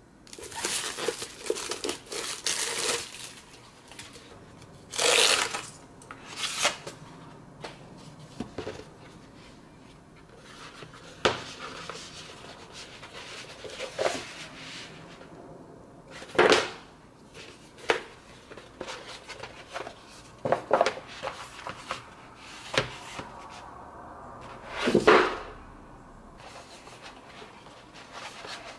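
Unwrapping and handling a rolled Hagibis cork desk pad: crinkling and tearing of its plastic shrink-wrap in the first few seconds, then scattered rustles, rubs and soft slaps as the cork mat is unrolled and rolled again on a desk.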